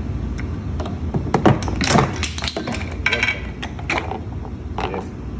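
Tools clicking and knocking against the machine as a nut and screws are being undone, the loudest cluster of knocks about a second and a half in, over a steady low hum.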